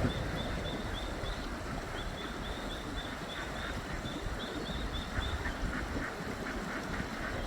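Ducklings peeping, short high calls about three a second, over the steady rush of fast river water. In the last two seconds a quicker run of lower duck calls comes in.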